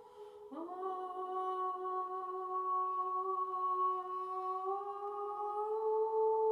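A voice humming long, sustained tones. A new note starts about half a second in with a slight upward scoop, is held steady, and then steps up a little twice near the end.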